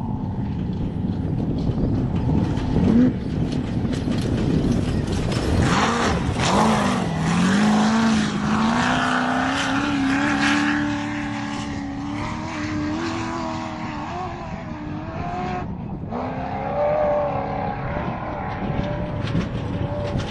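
Off-road race vehicle engine revving hard and passing at speed, its pitch dipping and then climbing steadily under acceleration, with gritty tyre and dirt noise underneath. The sound breaks off abruptly just before sixteen seconds in and picks up again with an engine at a different pitch.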